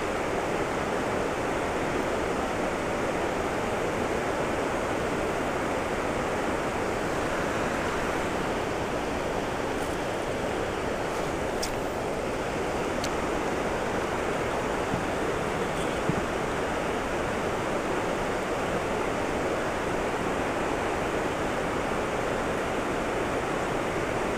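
Steady rush of flowing creek water running over a shallow riffle.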